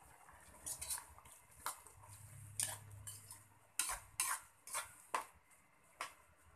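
Metal ladle stirring a wok of jackfruit and anchovies in coconut milk, clinking and scraping against the pan in short, irregular strokes that grow louder about four seconds in.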